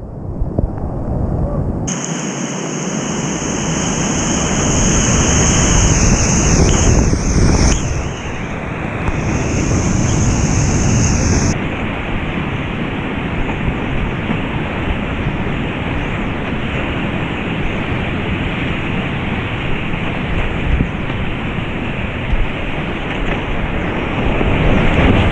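Rushing whitewater of river rapids and falls, a loud steady noise of water with wind buffeting the action-camera microphone. The sound changes abruptly a few times.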